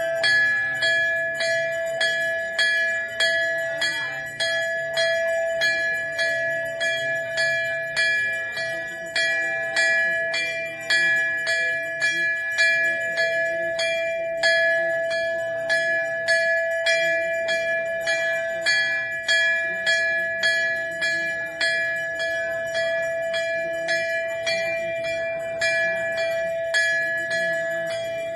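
Large hanging brass temple bell rung by hand, its clapper striking over and over in a steady rhythm, a little faster than once a second, each stroke ringing on into the next.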